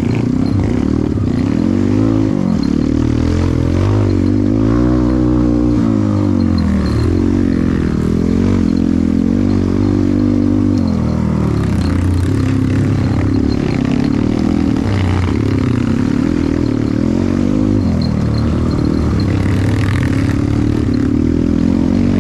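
Dirt bike engine revving up and down over and over as it is ridden off-road, the pitch rising and falling every second or two.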